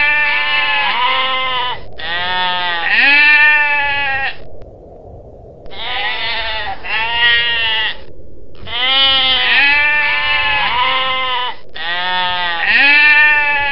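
Long-tailed goral calling: loud, pitched calls coming in pairs, repeated with short gaps and one longer pause.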